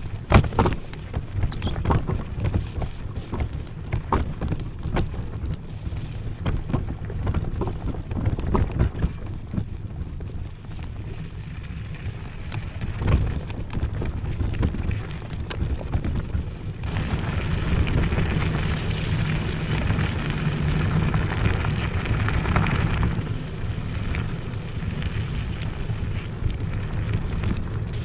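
Electric scooter riding over rough, muddy ground: wind buffeting the microphone and a scatter of knocks and rattles from the bumps. About two-thirds of the way in, the wind noise grows louder and fuller over a steady low hum.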